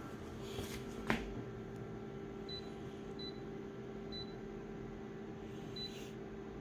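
A single sharp click about a second in, over a steady low hum, with four short, faint high beeps at uneven intervals later on.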